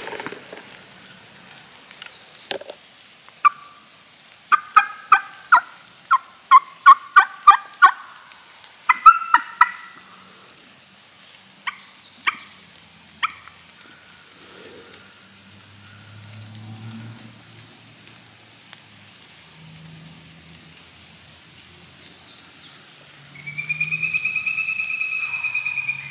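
A run of loud, close turkey yelps, about two a second, over the first half. Near the end an eastern wild turkey gobbler gobbles once, one rattling call of nearly three seconds.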